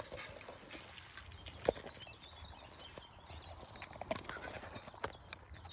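A few sharp clicks and snaps of twigs being handled close by, the loudest about a second and a half in, with faint birdsong behind.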